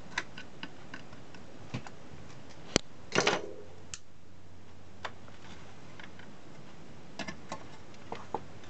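Scattered light clicks and knocks of hands handling an opened battery charger's metal case, wiring and front panel. One sharp click comes a little under three seconds in, then a brief clatter, and a few softer clicks come near the end.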